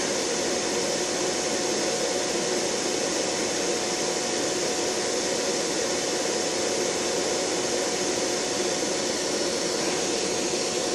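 A big electric fan running steadily: a loud, even rushing noise with a faint steady hum.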